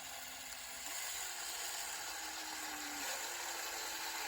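Electric drill running steadily, drilling out a broken-off muffler bolt in a Stihl 291C chainsaw cylinder. The motor's pitch steps up about a second in and then sags a little under load.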